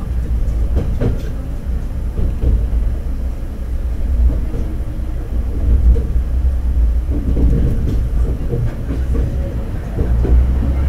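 Diesel railcar running on the rails, heard from inside the car: a steady low engine and running-gear rumble with the wheels clicking and knocking over rail joints and points.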